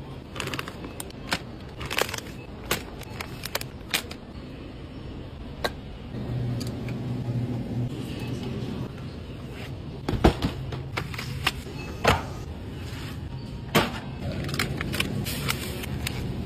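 Groceries being handled and set into a wire shopping cart: a string of sharp clicks and knocks as plastic bottles and soda cans touch each other and the metal basket, over a steady low hum.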